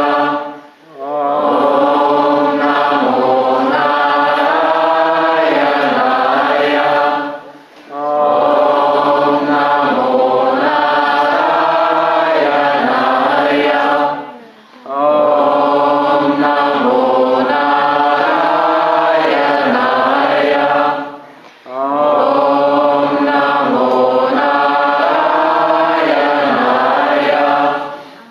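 Group of many voices chanting a mantra in unison, in phrases about seven seconds long separated by short pauses for breath.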